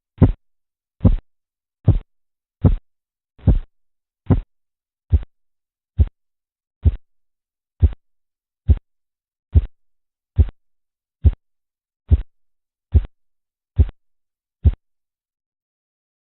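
Korotkoff sounds heard through a stethoscope over an artery under a deflating blood pressure cuff. They come as short, low thumps, one with each pulse, about seventy a minute, and stop near the end.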